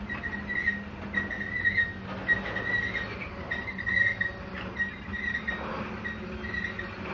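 Freight cars rolling slowly past, their steel wheels giving a high, wavering squeal that comes and goes every half second or so over a low rumble, with scattered clacks from the wheels on the rails.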